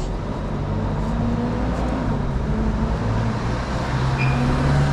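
City street traffic: a motor vehicle's engine running close by, a low rumble that grows gradually louder.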